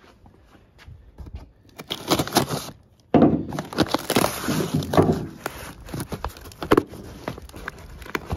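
Cardboard boxes and paper wrapping being handled and shifted about: irregular rustling, scraping and knocks, louder from about three seconds in.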